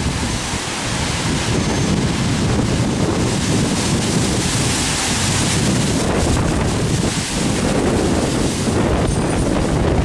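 Strong gusting wind thrashing through trees, with heavy wind buffeting on the microphone.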